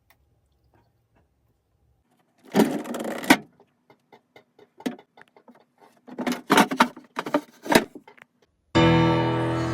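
Several short bursts of knocking and rattling from things being handled, then background music with held notes starts near the end.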